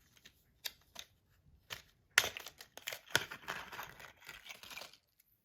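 Small parts of a Rapt fidget slider being handled: a few sharp clicks, then a crinkly rustling for a couple of seconds.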